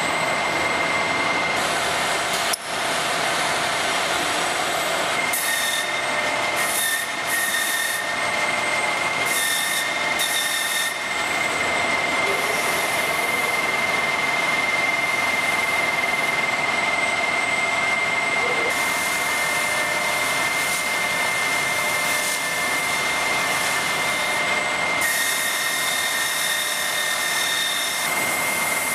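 Robotic belt grinding and polishing machines running, with a steady high whine over a hiss as brass faucet parts are pressed against the abrasive belts and buffing wheels.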